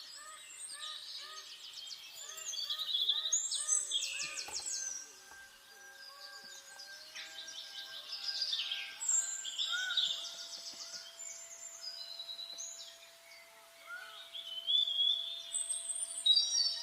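Several birds singing and calling at once: overlapping high chirps and rapid trills over rows of short repeated calls, swelling louder in a few bursts.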